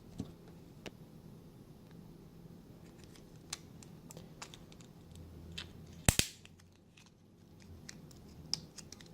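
Small plastic clicks and fiddling noises from handling an opened Toyota Sienna smart key remote and its coin battery, with one sharp double click about six seconds in.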